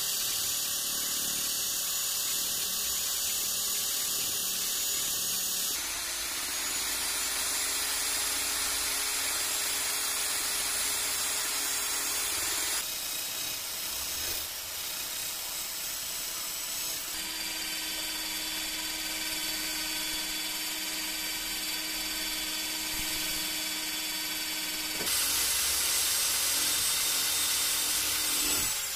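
Power drill spinning a brass wire wheel brush against the rusty metal frame of an old bubble level, scrubbing off rust. It is a steady motor whine with a scratchy hiss, and its pitch and tone change abruptly several times.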